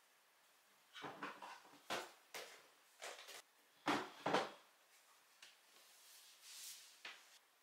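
Soft knocks and thumps of a fleece tote bag being handled and set down on a wooden desk, the loudest two about four seconds in. Near the end comes a light rustle as a cloth eco bag is handled.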